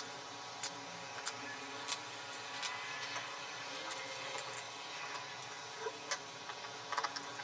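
Light, irregular clicks and taps of plastic parts being handled and fitted, about one to two a second, as a pressure washer's housing is put back together.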